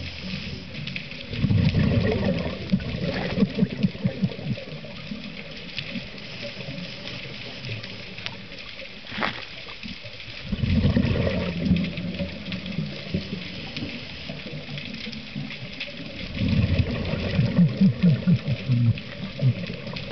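Scuba diver breathing through a regulator underwater: three loud bursts of exhaled bubbles, each lasting one and a half to three seconds, come about a second in, about ten seconds in and about sixteen seconds in. A steady hiss runs between them.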